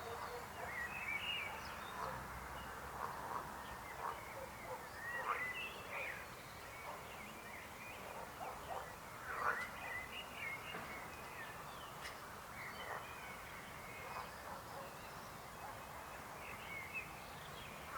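Chorus of frogs croaking: many short calls overlapping at irregular intervals.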